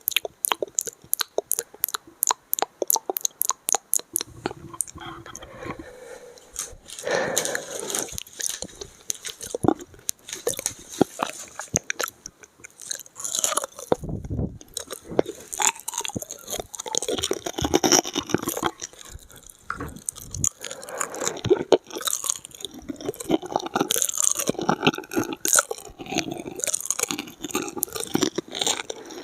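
Close-miked ASMR mouth sounds: a quick, even run of tongue clicks, about five a second, for the first four seconds, then wet chewing and crunching that carries on through the rest.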